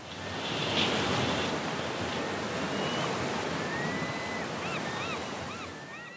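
Sea waves washing, a steady rush of surf noise, with a few faint high chirping calls over it in the last couple of seconds as it fades.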